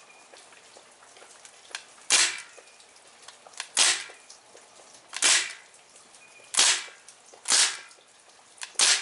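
Crosman R1 CO2 BB pistol fired six times, one shot at a time, about one to one and a half seconds apart. Each shot is a sharp crack of CO2 with a short tail.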